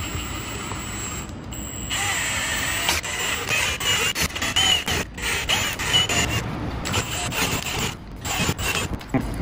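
Cordless drill spinning a tap used as a milling bit, grinding a round screw hole in a roof-rack crossbar out into an oval. The tap's threads catch as it is worked up and down, so the sound wavers in pitch and stops briefly a few times.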